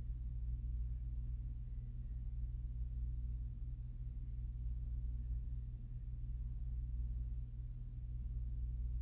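Room tone: a steady low hum, with no distinct events.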